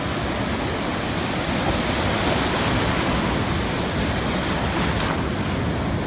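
Ocean surf breaking and washing in over the shallows: a steady rushing that swells a little in the middle.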